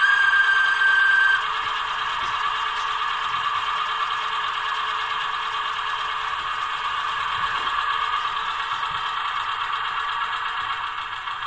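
Sound decoder of a Roco model NS Sik shunting locomotive playing through its small speaker: a steady high whistle tone for about the first second and a half, then the little diesel engine's chugging running on steadily and easing off slightly near the end.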